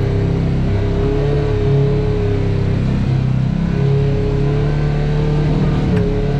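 Off-road vehicle engine working at low speed while crawling over rock, its pitch rising and falling a little as the throttle changes. A steady thin whine runs above it and drops out briefly about halfway through.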